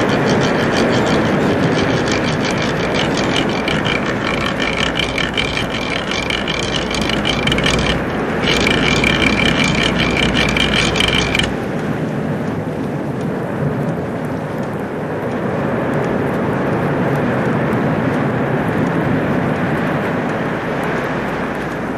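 A fast mechanical clicking rattle over a low hum, with two steady high tones, breaking off briefly and then stopping suddenly about halfway through. After it, a steady rushing noise like wind and surf.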